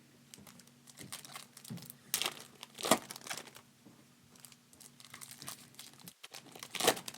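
Trading card pack wrappers crinkling and tearing open as the cards are handled: irregular crackles with sharp snaps, the loudest about three seconds in and again near the end.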